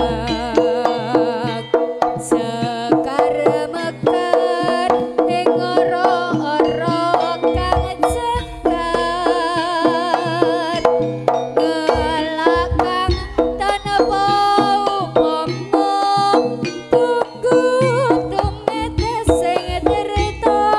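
Live jaranan ensemble music: kendang barrel drums beat a busy, driving rhythm under a wavering, vibrato-laden melody line, with deep low booms a few times.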